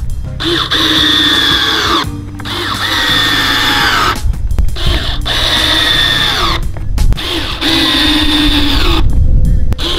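Black+Decker 8V lithium-ion cordless drill driving screws into a wooden board: the motor whines in runs of about two seconds, its pitch falling as each screw goes in, with short pauses between screws. Background music plays under it.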